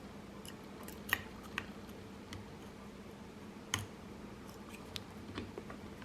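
Faint, scattered small metallic clicks and taps of lock picks working in the keyway of a Paclock 90A Pro padlock, a few sharp ticks spread irregularly over several seconds as the pins are set.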